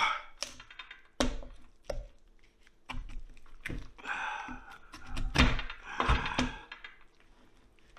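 A large kitchen knife hacking and stabbing into a roasted lamb head's skull on a cutting board: a series of dull thunks, about one a second, with some scraping of the blade between blows. The blade is not getting through the bone.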